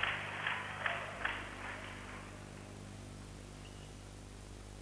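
Four light clicks about 0.4 s apart in the first second and a half, then only a steady low mains hum and hiss from an old broadcast tape recording.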